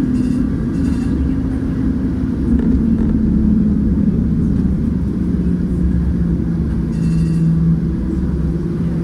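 PCC streetcar running along its track, heard from inside the car: a steady low rumble with a motor hum that drops in pitch a few seconds in, then holds steady. There are a few short high-pitched rings near the start and about seven seconds in.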